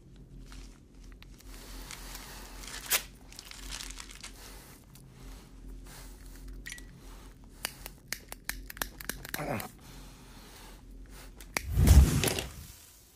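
Crinkling and tearing of a small wrapper being handled, with scattered light clicks and a falling tone. Near the end comes a loud whooshing burst.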